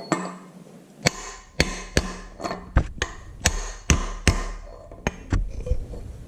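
Hammer tapping on a 2-inch socket to drive a tractor front bolster's felt seal retainer down until it seats: about ten sharp taps at an uneven pace, starting about a second in.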